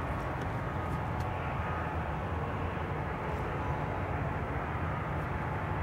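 Steady low outdoor rumble with a few faint clicks as potatoes are picked out of loose soil.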